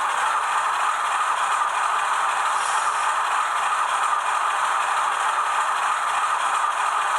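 HO-scale model diesel locomotive and its train of wagons running on model track: a steady rattle of wheels over the rails.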